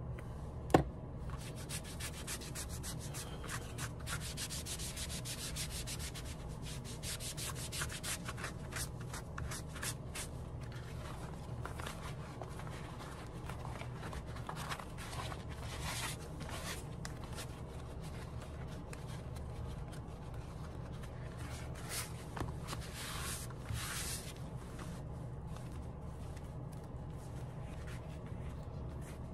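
A sponge and hands rubbing leather conditioner into a leather panel: rapid scrubbing strokes, busiest in the first ten seconds and then in short spells, over a steady low hum. A single sharp click about a second in.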